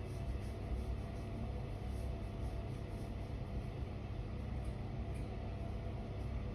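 Steady low background rumble and hum, with no distinct events.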